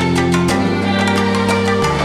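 Background music: sustained instrumental chords over bass notes that change about once a second, with a regular percussion beat.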